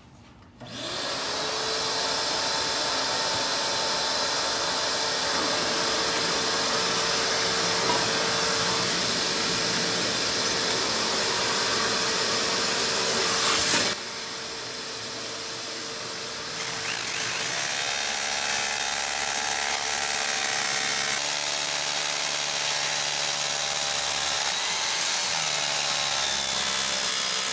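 A shop vacuum spins up and runs steadily. From a little past halfway, a corded rotary hammer drill joins it, its pitch shifting in steps as it bores through a pressure-treated wooden plate into the concrete slab, drilling holes for split-drive anchors. The vacuum hose is held at the bit to catch the dust.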